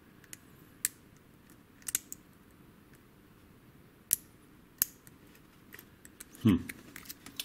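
Lock pick working the pins of a WILKA pin-tumbler cylinder with security pins: scattered sharp metallic clicks and ticks, some single and some in quick pairs, with a louder clatter of clicks about six and a half seconds in.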